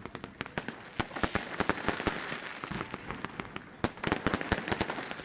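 Many amateur fireworks and firecrackers going off at once: a dense, irregular string of sharp bangs and crackles over a steady hiss, thickest about four seconds in.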